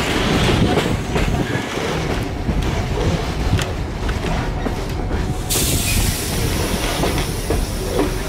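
Passenger train running along the track, heard from a carriage: a steady low rumble with repeated clicks of the wheels over the rails. A hiss comes in suddenly about five and a half seconds in.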